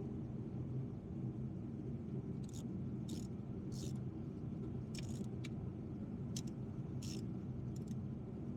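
Short metallic clicks and scrapes of hand tools, a socket and extension, working at a spark plug on the engine. About eight of them come irregularly from a couple of seconds in, over a steady low hum.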